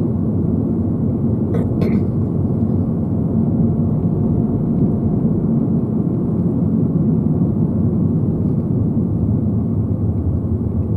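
Steady low rumble of road and engine noise inside a moving car's cabin, with two brief clicks just under two seconds in.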